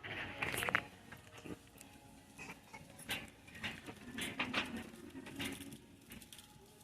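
Irregular rustling with small clicks and taps.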